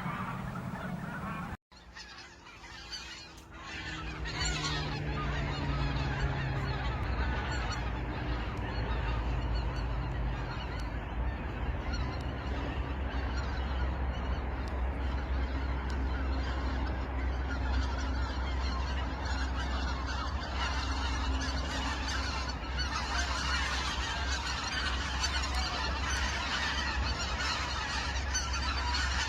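A flock of wild geese honking, many calls overlapping in a dense continuous chorus over a steady low rumble. After a brief break about a second and a half in, the calling builds over the next few seconds.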